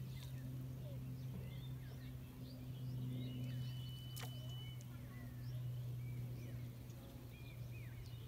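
Birds chirping repeatedly with short calls, over a steady low hum. A sharp click about four seconds in.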